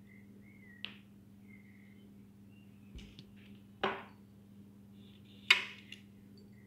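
Three sharp knocks and clicks from handling things on a kitchen counter: a small click about a second in, a louder knock near four seconds, and the loudest sharp knock at about five and a half seconds. Under them is a faint low hum with a few faint high chirps.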